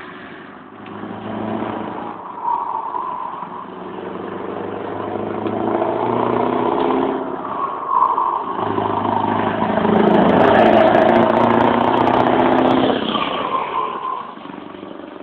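Scania 164 580's V8 diesel truck engine accelerating toward and past, its note climbing in stages with brief breaks between them as it pulls through the gears. It grows loudest as the truck goes by near the end, then drops away.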